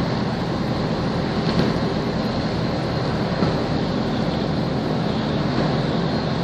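Steady low engine rumble mixed with the rush of water and wind noise.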